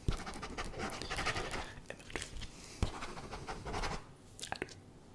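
Inaudible whispering close to the microphone: two long, breathy stretches of unvoiced air without clear words. Scattered mouth clicks and a few sharp taps run through them.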